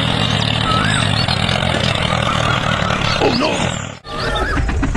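A steady low engine-like rumble with wavering animal calls over it, one sliding down in pitch about three seconds in. The sound cuts out abruptly for a moment about four seconds in.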